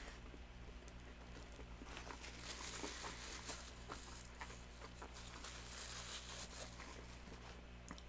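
Faint chewing of a McRib sandwich: small wet mouth clicks and smacks, over a steady low electrical hum.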